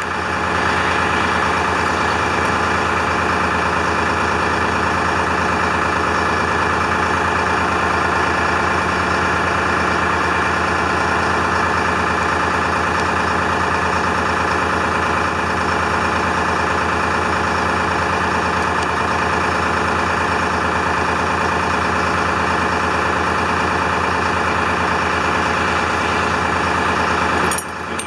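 International fire truck's Detroit Diesel engine idling steadily, running to build up air pressure in the brake and horn system.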